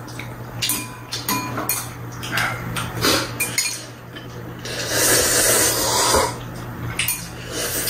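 Chopsticks clicking and clinking against bowls while ramen is eaten, with a loud noodle slurp lasting over a second about five seconds in. A steady low hum sits underneath.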